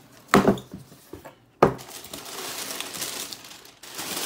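Handling noise from a sneaker and its cardboard shoebox: a sharp knock about a third of a second in and another about a second and a half in, then a couple of seconds of soft rustling.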